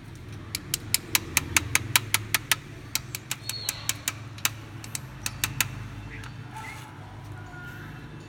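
A quick, irregular run of sharp metallic clicks, about four a second, from steel feeding tweezers used to hand-feed nestling oriental magpie-robins; the clicking stops about two-thirds of the way through, leaving a low steady hum.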